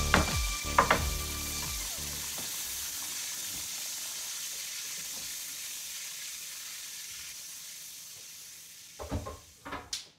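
Beef and vegetable stir-fry sizzling in its sauce in a hot pan, a steady hiss that slowly fades. A few knocks near the end.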